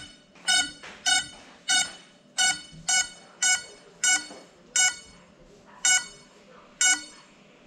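A grounded Cinelog35 FPV drone beeping: about ten short, shrill, identical beeps, half a second to a second apart, with the gaps growing a little longer near the end. This is the lost-model alarm that a downed quad sounds so that it can be found.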